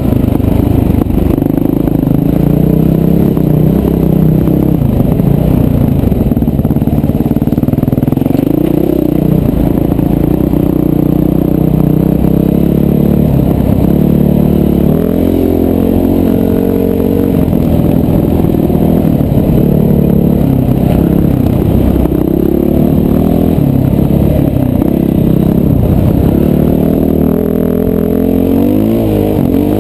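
Dirt bike engine under way, heard close from the rider's helmet camera. The revs rise and fall again and again as the rider works the throttle and gears over rough ground.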